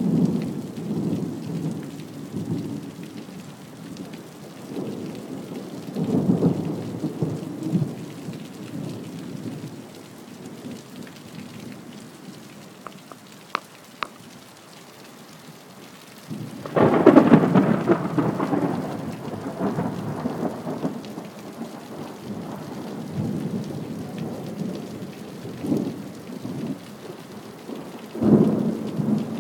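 Thunder rolling over steady rain: low rumbles at the start and about six seconds in, a louder, sharper clap about seventeen seconds in that rumbles away over several seconds, and another roll beginning near the end.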